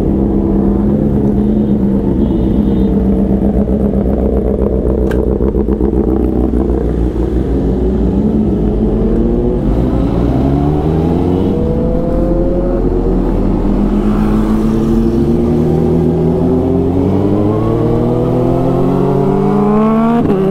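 Superbike engine running under way at speed: it holds a steady note at first, then climbs in pitch as it accelerates from about nine seconds in, drops back for a shift, and climbs again steadily to the end.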